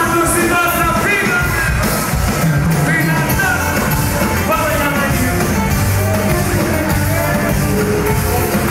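Loud live music: a singer with a band, amplified through the venue's sound system.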